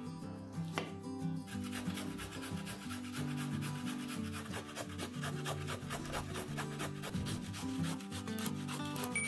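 A whole zucchini being grated on a metal box grater: quick, repeated rasping strokes that start about a second and a half in and run on until just before the end, over quiet background music.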